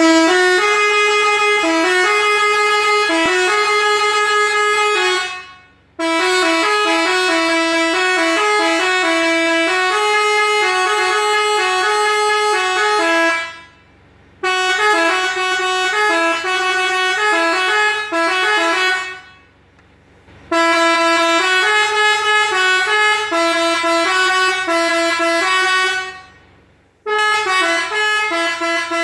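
Telolet horn: a 21-button control module sounding three air-horn trumpets, tooting quick melodic tunes with several notes at once. The tunes come in runs of several seconds with short breaks between.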